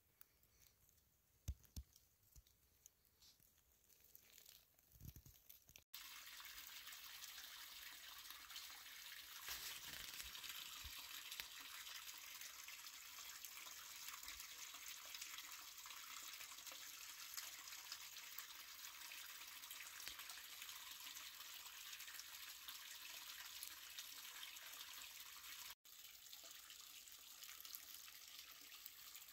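Steady rush of running water from a spring and a small cascade over rock ledges into a pool, starting suddenly about six seconds in after a few soft thumps in near-silent woods, and carrying on a little quieter after a cut near the end.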